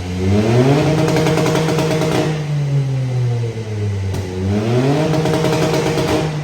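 Volkswagen Up MPI's 1.0 three-cylinder engine revved twice from idle. Each time the pitch rises quickly, holds high for a second or so, then falls back slowly. The second rev starts about four seconds in.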